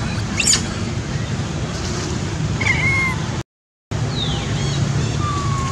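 Steady rushing outdoor noise with a low rumble, broken by a few short high-pitched squeaks and gliding calls, and a half-second drop to silence about three and a half seconds in.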